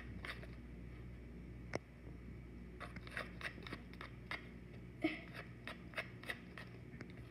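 A spoon stirring a thick shampoo-and-salt slime mixture in a plastic bowl: faint, irregular clicks and scrapes of the spoon against the bowl.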